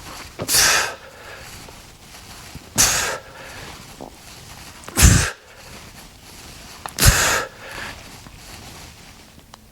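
A man with a head cold making four forceful, breathy exhalations, each a short burst about two seconds apart. The third and fourth come with a sharp low thud.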